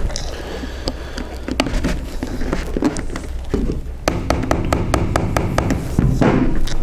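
Plastic demoulding wedges being pushed and worked between a fibreglass boat hull and its fibreglass mould, giving a run of sharp, irregular taps and clicks as the moulding is levered free.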